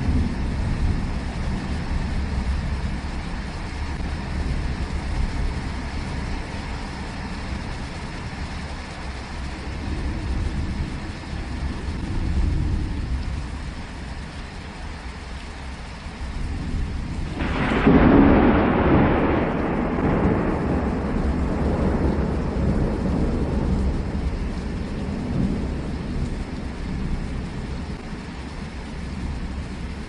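Thunderstorm: steady rain with low rolling thunder, and a loud thunderclap a little past halfway that rumbles away over the next few seconds.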